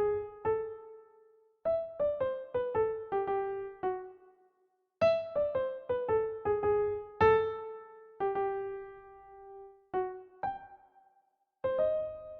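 Solo piano melody played in short phrases, each a quick run of notes stepping down in pitch and left to ring, with brief silent pauses between phrases.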